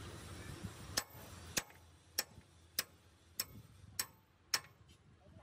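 A hammer tapping on the steel wheel hub of a heavy truck's rear axle: seven light, sharp metallic strikes at an even pace of roughly one every 0.6 seconds, starting about a second in.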